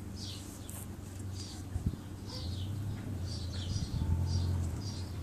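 Birds chirping: a run of short, high chirps that fall in pitch, about two a second, over a low rumble that swells near the end.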